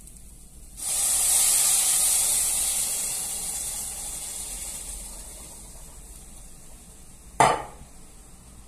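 Water poured into a hot pan: a sudden loud sizzle about a second in that slowly dies away over several seconds. Near the end, a single sharp knock.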